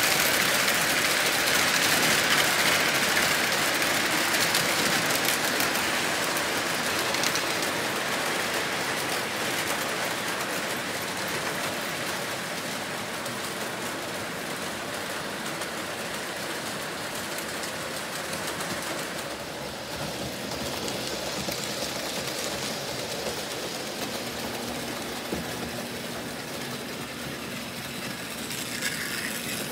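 Lionel model trains running on the layout's track: a steady rumbling clatter of wheels and motors, loudest at first and slowly fading over the stretch.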